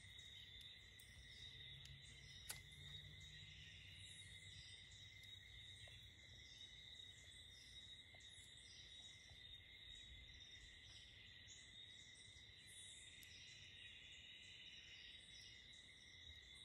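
Near silence with a faint, steady insect chorus: a continuous high trill, with scattered faint chirps above it. A single sharp click sounds about two and a half seconds in.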